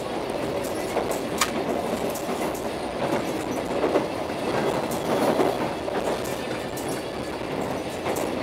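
Argo Parahyangan passenger train running at speed, heard from inside the coach: a steady rumble of wheels on rail with a few scattered sharp clicks.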